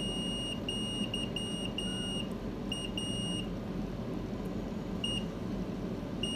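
Digital multimeter's continuity buzzer giving high-pitched, irregular beeps of varying length as the test probes touch the headphone plug's contacts and wires; each beep means the probes have found a closed circuit. The beeps come thick for the first few seconds, stop, give one short beep, and start again near the end.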